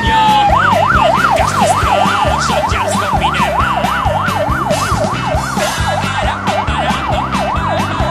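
Fire engine siren going from a falling wail into a fast yelp, sweeping up and down about three times a second, over background music with a steady beat.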